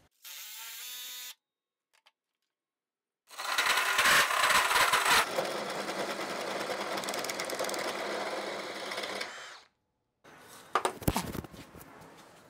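Power drill briefly spinning up, then, after a pause, running for about six seconds as it turns a square ash blank through a hole in a wooden block while a clamped chisel on top shaves it round. The cut is rough: the chisel shifts and tears chips out of the ash. A few sharp clicks come near the end.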